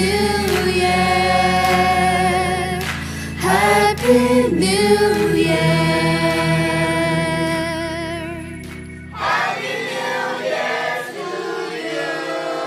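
Background music: sung vocals with long, held, wavering notes over a steady low backing. About nine seconds in, the low backing stops and the music changes to a new passage.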